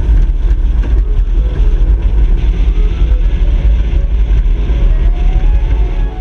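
Aluminium river boat running fast under power: steady motor and water noise, heavily buffeted by wind on the microphone. It cuts off abruptly at the end.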